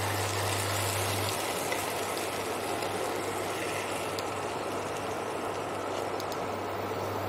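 Marinated chicken pieces sizzling in shallow oil in a nonstick frying pan as they brown, with a few faint clicks as metal tongs turn them. A steady low hum runs underneath, louder for about the first second.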